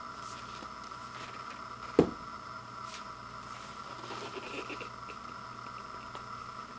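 Cardboard gatefold LP jacket being handled and folded open: a single sharp knock about two seconds in, then soft rubbing and small crinkly ticks as the sleeve opens.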